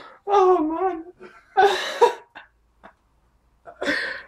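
West Highland white terrier howling in short bursts: a wavering cry near the start, then two harsher yowls, one about a second and a half in and one near the end.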